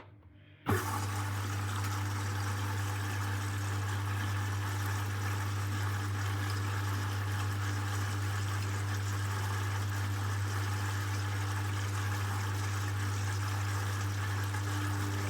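Hoover washing machine's water inlet valve opening suddenly about a second in and filling the drum for the final rinse: a steady rush of water over a low, even hum.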